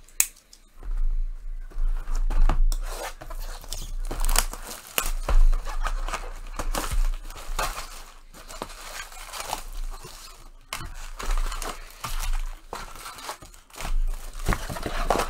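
A sealed box of trading cards being opened: paper-and-plastic wrapping torn and crinkled by hand, in irregular bursts of tearing and crackling with occasional knocks of cardboard on the table.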